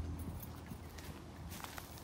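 Footsteps on a gravel path: scattered light crunches and clicks, closer together near the end.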